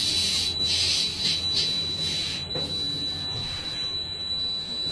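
CNC machining centre running: a steady high-pitched whine, with a low hum beneath and bursts of hiss in the first two seconds.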